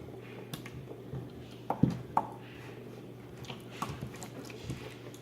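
Slime goop being handled by hand: scattered soft wet squelches and clicks, with two louder ones about two seconds in.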